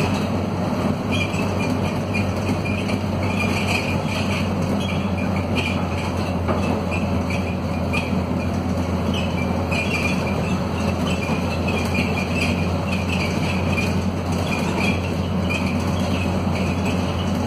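Scania DC9 five-cylinder diesel of a Scania K230UB city bus running steadily under load on a climb, heard from inside the cabin. The hum stays even, with bursts of rattling from the bus's worn bodywork.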